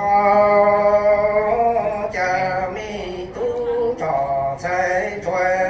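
A man chanting in long, held sung notes into a handheld microphone. The first note is held steady for about a second and a half, then shorter phrases follow with small bends in pitch.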